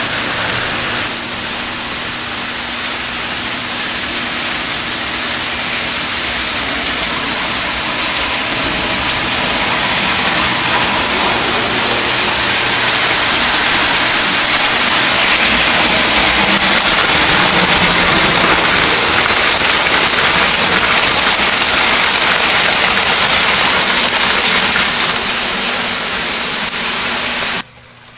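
O-scale three-rail toy train running on the layout track: a steady rushing roll of wheels on rail with a faint motor hum underneath, growing louder over the first half and cutting off abruptly near the end.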